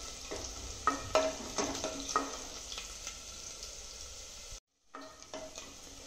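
Garlic and cumin seeds sizzling in hot ghee in an aluminium pressure cooker, with a spatula stirring and knocking against the pot several times in the first half, each knock ringing briefly. The sound breaks off for a moment about two-thirds of the way through.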